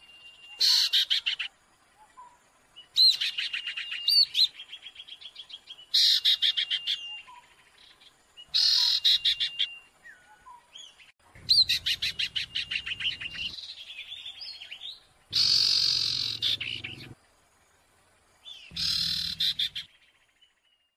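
Several birds of the kind called 'sirtu' in Indonesia calling together: repeated bursts of fast chattering trills, each a second or two long with short pauses between, and a thin steady whistled note between some bursts.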